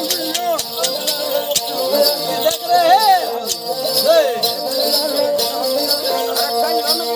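Ravanhatha, a Rajasthani bowed folk fiddle, playing a sliding melody over steady drone strings, with bells on the instrument jingling along in sharp, uneven clicks.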